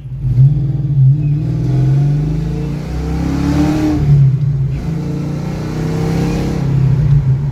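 1993 Ford Mustang 5.0's V8 engine running under acceleration as the car is driven, its pitch rising through the middle, dipping briefly about four seconds in, then pulling again.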